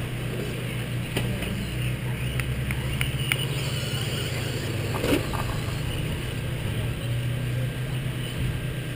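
Radio-controlled off-road race cars running on a dirt track, under a steady low hum. There are a few sharp clicks in the first few seconds and a louder knock about five seconds in.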